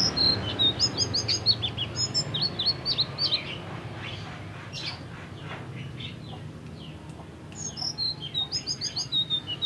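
Selendang biru (sitrun) songbird singing: quick runs of short, high, falling chirps. The song thins out in the middle and picks up again near the end.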